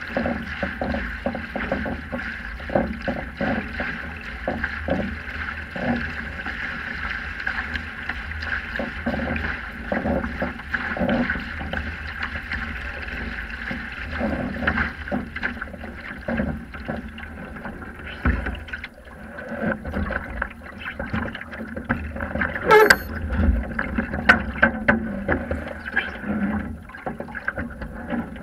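Water rushing and slapping against the hull of a Sprint 15 catamaran under sail, heard through a camera mounted on the hull, with many irregular slaps. A sharp knock comes about three quarters of the way through.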